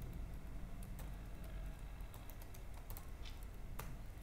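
Typing on a computer keyboard: an irregular run of keystroke clicks over a low background hum.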